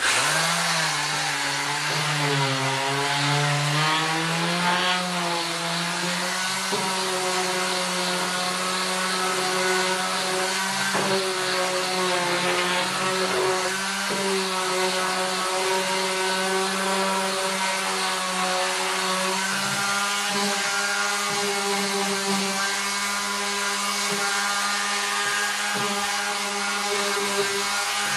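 Electric random orbital sander switching on and sanding a wooden slat: a steady motor hum over the gritty rasp of the pad on the wood. The pitch rises as it starts and wavers for the first few seconds as it is pressed and moved, then holds steady.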